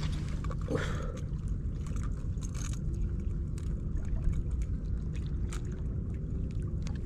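Steady low rumble of wind and water on the microphone, with scattered light clicks of handling as a snapper is unhooked with pliers on a kayak.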